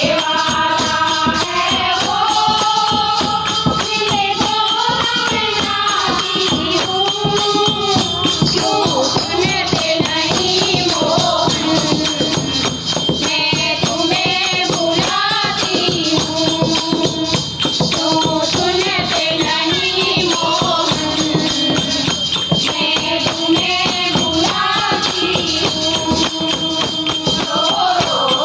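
A group of women singing a Hindi Shyam bhajan, a devotional song to Krishna, in unison. A melodic lead carries it, with a dholak drum, small metal hand cymbals (manjira) and hand clapping keeping a steady rhythm throughout.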